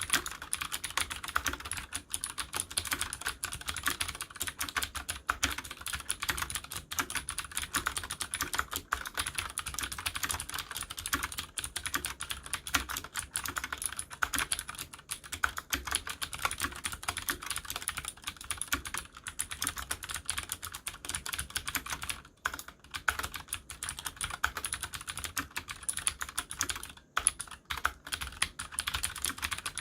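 Continuous fast typing on a Leopold FC750R PD mechanical keyboard with clicky Cherry MX Blue switches, a dense stream of sharp key clicks. The typing breaks off briefly about 22 and 27 seconds in.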